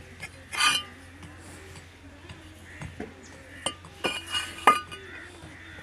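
Fired clay bricks clinking and knocking against each other as one is lifted from a stack, with a sharp ringing clink about half a second in and a cluster of clinks around four seconds in.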